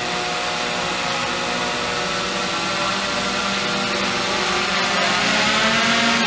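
Small quadcopter's electric motors and propellers whirring steadily, a multi-toned buzz that rises a little in pitch and loudness near the end as the quad undocks from the airship and drops away.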